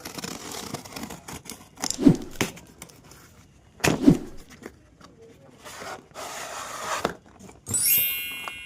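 Packaging being handled while a ring light is unboxed: rustling and scraping, with two solid knocks about two and four seconds in. Near the end comes a brief ringing tone of several pitches that starts sharply and fades.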